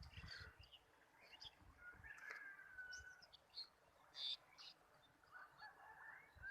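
Faint bird calls: scattered short chirps and one drawn-out call lasting about a second, starting about two seconds in.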